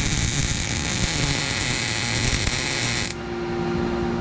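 Welding arc crackling and hissing steadily as a tack weld is laid on a steel console mount bracket, cutting off suddenly about three seconds in; a steady low hum is left after it.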